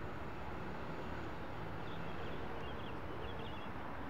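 Steady outdoor background noise, with faint bird chirps about two to three seconds in.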